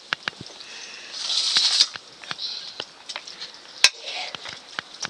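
Light clinks and scrapes of steel plates and a ladle in a wok during a meal, with a short scraping hiss about a second in and one sharper clink just before four seconds.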